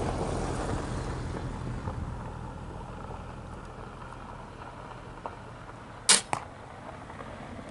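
Crossbow fired from a shooting rest: one sharp, loud crack of the released string about six seconds in, followed a quarter second later by a fainter click.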